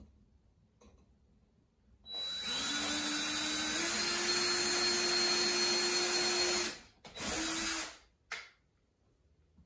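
Power drill boring pilot holes for screws. It starts about two seconds in, its motor rising in pitch as it spins up, runs steadily for about four seconds and stops. A second, shorter burst follows.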